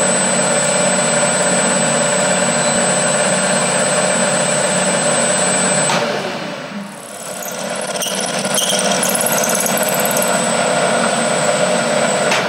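Milling machine spindle running with a drill bit cutting a hole into an aluminium block: a steady motor whine that breaks off about six seconds in, dips briefly, then picks up again as the drilling continues.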